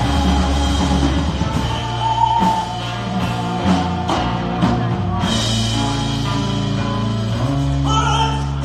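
Rock band playing live: acoustic guitar, electric guitar, bass and drums, with voices singing over sustained chords.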